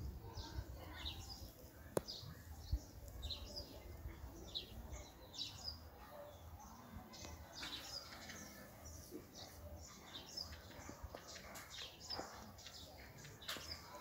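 Faint birds chirping, short high calls scattered irregularly, with a single sharp click about two seconds in.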